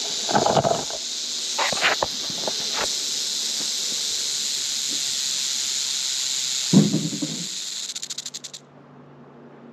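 Rattlesnake buzzing its tail rattle in a steady, high, hissing buzz that breaks into quick separate clicks and stops about eight and a half seconds in. It is the snake's defensive warning. A few dull thumps come over it, the loudest about seven seconds in.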